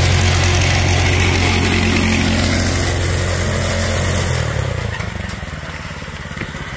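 Go-kart's single-cylinder small engine, governor removed and fitted with a rev-limiting ignition coil, running at steady high revs. About four seconds in it drops in pitch and gets quieter as the kart heads off into the woods.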